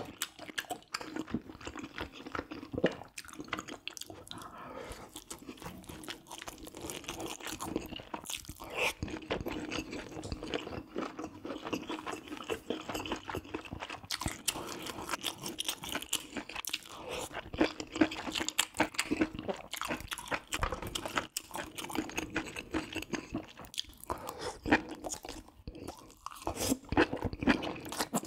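A person chewing and eating spicy braised pork ribs with rice cakes and mushrooms: a dense, continuous run of wet chewing and small mouth clicks, with a few louder bites.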